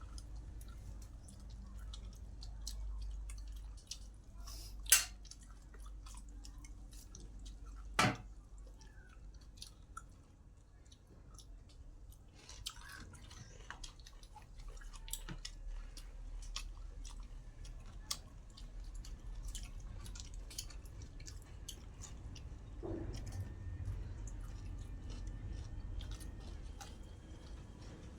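A person chewing and eating, with many small wet mouth clicks and smacks. There are two sharp knocks, one about five seconds in and one about eight seconds in.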